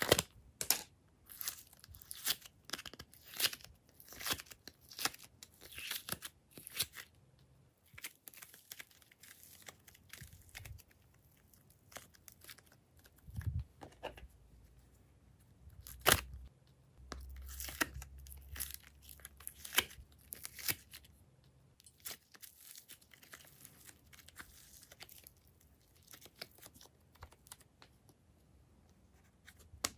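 Thin plastic slime containers crinkling and crackling as they are handled and squeezed, in an irregular string of sharp clicks and crackles, with a couple of soft thumps near the middle as clay is set down on the slime.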